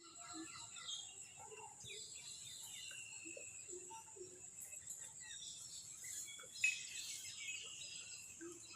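Several birds chirping and calling over a steady, high-pitched insect drone, with one brief, louder sound about two-thirds of the way through.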